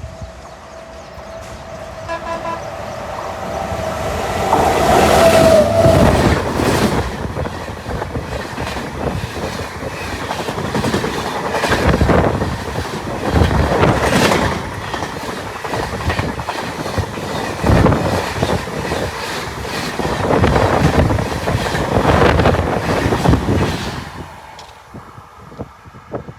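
Express train hauled by a WAP7 electric locomotive passing at high speed. The tail of its horn fades early, then for about twenty seconds the coaches rush past with repeated heavy clatter of wheels over the rail joints, dying away near the end.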